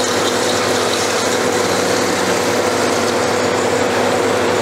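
Steady mechanical running noise with a constant hum, like a motor or compressor running nearby.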